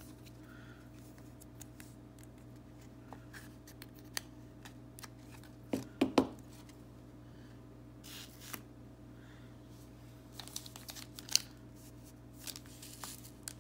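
A sleeved trading card being slid into a rigid plastic toploader and handled: soft plastic scrapes and small clicks, with a few sharper taps about six seconds in and a run of light ticks near the end.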